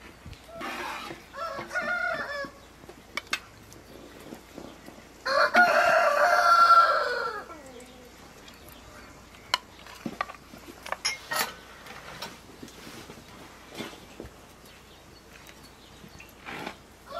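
A rooster crows once, loudly, a call of about two seconds that falls away at the end, after quieter chicken calls about a second in. Light clinks of a metal ladle in a cooking pot are scattered throughout.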